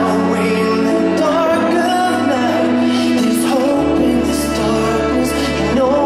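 Live pop ballad: a male singer sings a wavering melody into a microphone over held chords, with the bass shifting to a new note about four seconds in.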